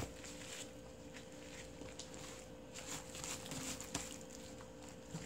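Rubber-gloved hands rubbing chili seasoning paste into salted napa cabbage leaves: irregular wet squishing and rustling of the leaves, with a sharp knock about four seconds in, over a faint steady hum.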